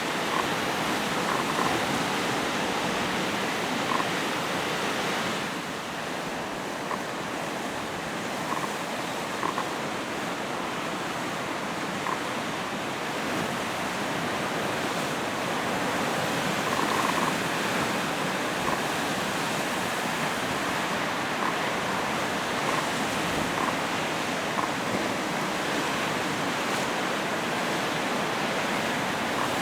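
Lake waves in winter washing and churning against the shore in a steady rush, the water thick with slush. Scattered short, faint ticks sound through it.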